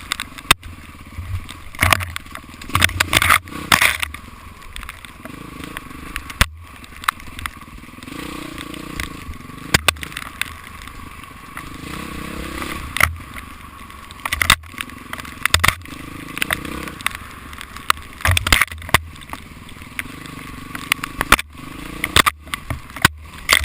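Dirt bike engine running with its note rising and falling, with many sharp knocks and clatter from the bike over rough ground.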